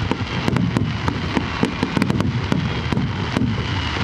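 Aerial fireworks bursting in a rapid barrage: a dense run of sharp cracks, several a second, over continuous deep booms.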